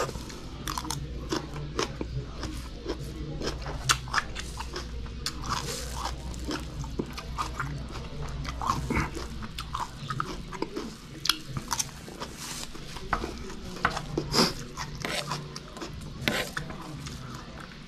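Close-up crunching and chewing of raw vegetables such as string beans, with rice: irregular crisp crunches, several a second.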